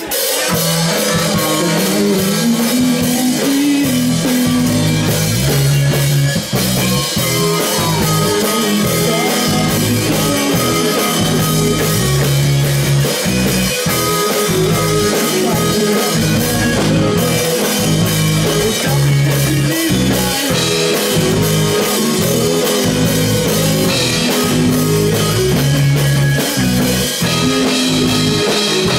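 Live rock band playing loudly: electric guitar and a drum kit, with a low line moving under a steady beat.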